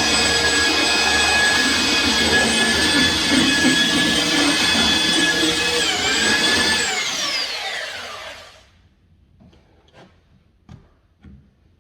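An electric motor running with a steady whine, switched off about seven seconds in and winding down, its pitch falling. A few faint knocks follow.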